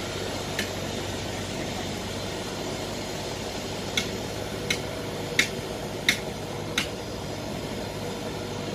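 Steady running hum of a tracked paddy-field tractor working a flooded rice field. About halfway through comes a run of five sharp clicks, roughly two-thirds of a second apart.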